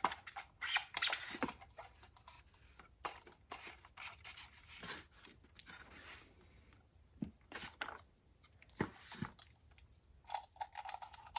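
Handling noise from a small portable radio being turned over and examined by hand: irregular rubbing and scraping with scattered light clicks and knocks.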